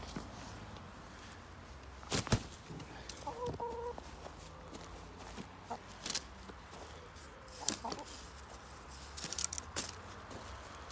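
Chickens clucking, with one short pitched call about three seconds in, amid a few sharp knocks and rustles.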